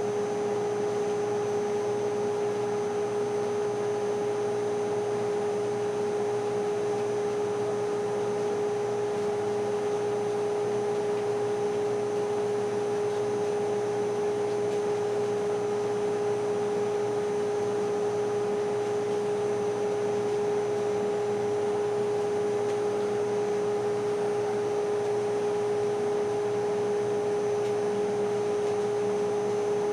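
Steady machine hum with one constant tone over a light hiss, unchanging throughout.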